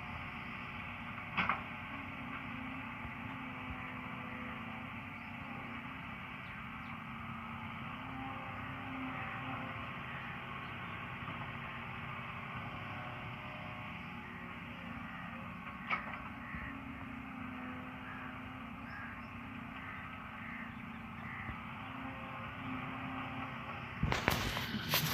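Diesel engines of a wheeled excavator and a tractor running steadily while the excavator loads soil into the trolley. There are two sharp knocks, about a second and a half in and about sixteen seconds in, and a louder rough noise near the end.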